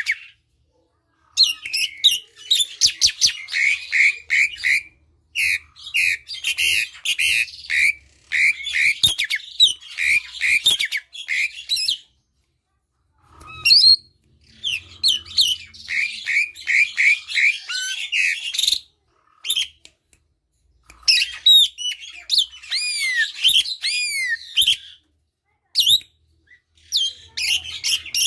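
Javan pied starling (jalak suren) singing in loud bursts of fast, chattering song: runs of rapid repeated notes mixed with arching whistled notes, broken three times by pauses of a second or two.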